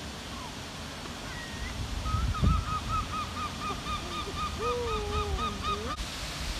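Waterfowl calling on a lake: a rapid run of short honking notes, about four a second, with a second, lower drawn-out call over them, all cutting off abruptly near the end. A low thump comes about two and a half seconds in.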